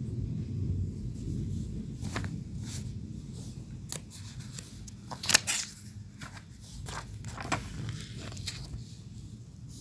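Low rumble of thunder dying away, with scattered sharp clicks and rustles from handling the phone over a paper page, the loudest click about five seconds in.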